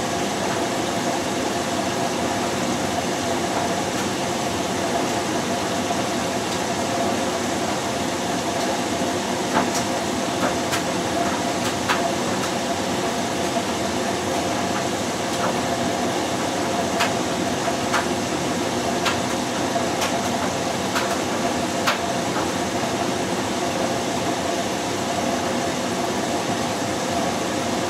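LG 6 Motion direct-drive front-loading washer (FH4U2VCN) in its first rinse, the drum turning wet laundry in rinse water with a steady hum. Brief light clicks come scattered from about ten to twenty-two seconds in.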